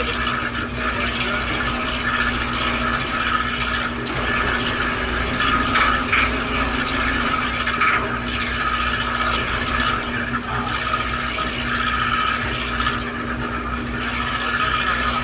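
Fishing boat's engine running steadily: a constant low hum with a steady drone over it, mixed with the wash of water.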